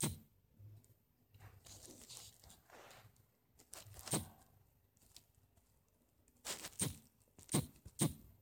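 Faint handling noise: scattered sharp clicks and light rustling. One click comes at the start, another about four seconds in, and four more close together near the end.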